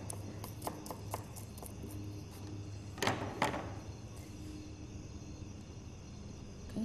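Chef's knife chopping fresh parsley on a cutting board: several quick chops in the first second or so, then two sharper knocks about three seconds in, with a low steady hum behind.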